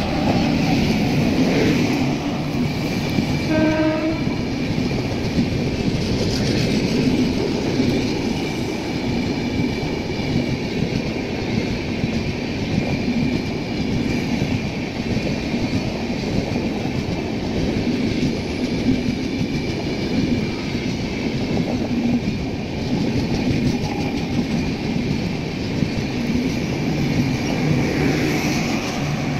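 An express train hauled by an Indian Railways WAP-7 electric locomotive passes at speed, with a short horn blast about four seconds in. A long rake of passenger coaches then keeps running by, making a steady rumble of wheels on rail.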